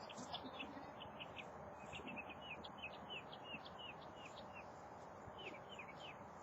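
Small birds chirping: quick, short, falling chirps, several a second, over a faint background hiss.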